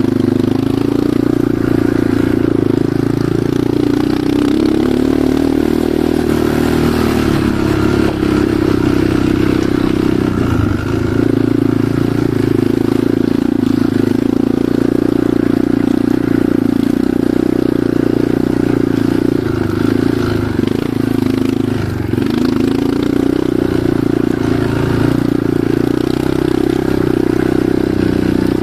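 Enduro motorcycle engine running steadily while riding, its pitch dipping and rising slightly a few times with the throttle.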